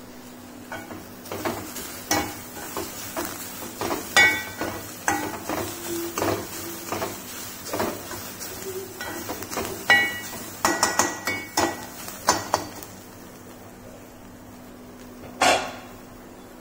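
A steel ladle stirs and scrapes grated carrot and coconut in a metal pan, with a run of irregular clinks and scrapes of spoon on pan. The stirring stops about 13 seconds in, and a single louder knock follows near the end.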